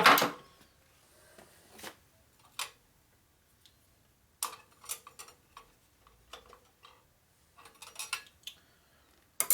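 Scattered sharp metallic clicks and clinks of steel tools and sockets being handled and fitted on a nut, with a quick cluster of clicks near the end.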